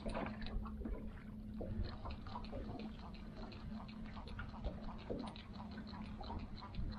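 Fishing reel being cranked to bring in a hooked fish, its gears clicking quickly and evenly, over the steady low hum of the boat's motor.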